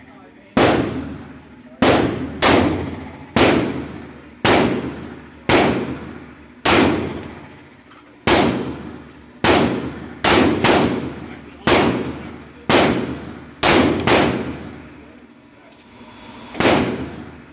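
Gunshots at an indoor shooting range: about sixteen single shots at uneven intervals of roughly a second, each followed by an echoing tail.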